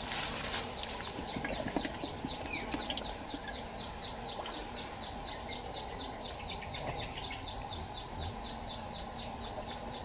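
Insects calling in the vegetation: a short chirp repeats about four times a second, and a thin high trill comes and goes in short runs. There are a few faint clicks or rustles in the first second.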